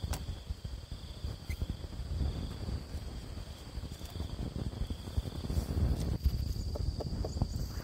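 Insects trilling in two steady high-pitched tones, one of them coming and going, over a low rumbling noise, with a few light knocks and clicks in the second half.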